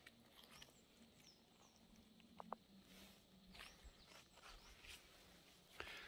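Near silence: faint outdoor quiet with a few soft scattered ticks and faint high chirps.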